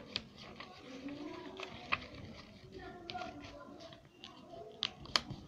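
Paper card being handled: a few sharp crisp clicks and paper sounds as the folded card is closed and pressed flat, the loudest click near the end. Faint voices murmur in the background.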